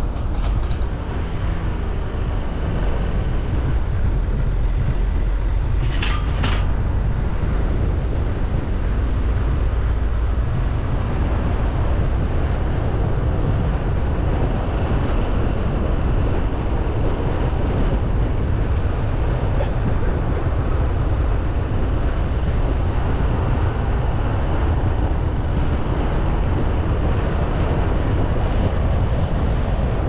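Steady low rumble of a car driving along the road: engine, tyre and wind noise from the moving car. A brief high-pitched sound cuts through about six seconds in.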